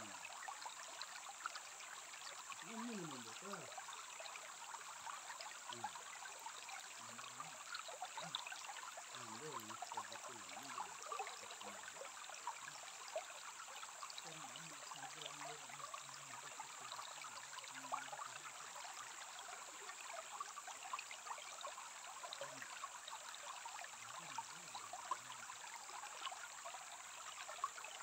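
Shallow stream trickling and burbling over pebbles and stones, a steady babble of many small splashes.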